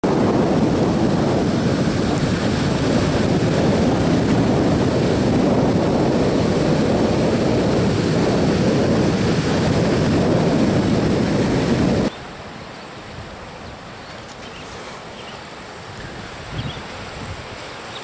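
Heavy surf from a hurricane swell breaking on a stony beach, with wind buffeting the microphone; about twelve seconds in, the level drops abruptly to a quieter, steady wash of surf.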